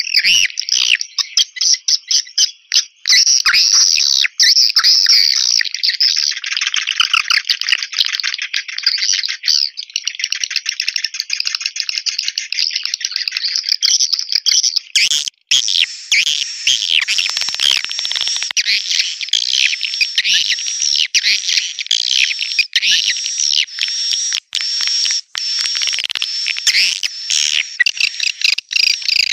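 Swiftlet lure call for a swiftlet house: a dense, continuous twittering of many swiftlet chirps. It breaks off briefly about halfway through and comes back fuller and higher.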